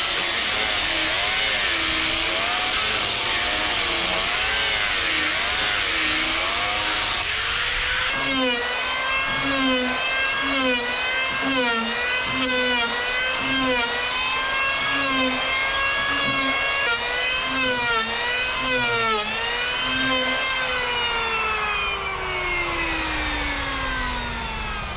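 Power tools dressing a wooden boat's hull plank. First an angle grinder with a sanding disc runs against the wood with a wavering whine. Then an electric hand planer bites the plank again and again, its motor dipping in pitch with each stroke about once a second, and after about 20 s it is switched off and winds down with a falling whine.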